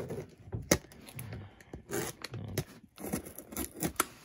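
Utility knife blade slitting the packing tape along the seam of a cardboard box: scraping and tearing, with several sharp clicks and taps against the cardboard.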